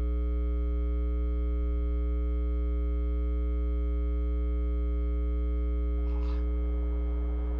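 Ex-NdeM E60C-2 electric locomotive giving off a deep, steady electrical hum with a stack of higher steady tones above it, the AC transformer drone of a catenary-powered locomotive. A short hiss comes about six seconds in, and near the end the higher tones fade into rougher running noise.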